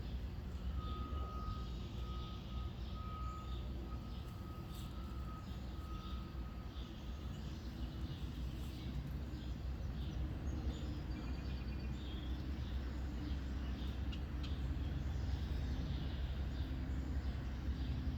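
Heavy vehicle engine running with a low steady rumble while its reversing alarm beeps in an even series, stopping about seven seconds in. Birds chirp.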